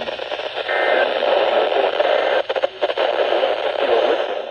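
Weather radio receiver putting out a steady hiss of static, with a few brief crackles, then cutting off suddenly.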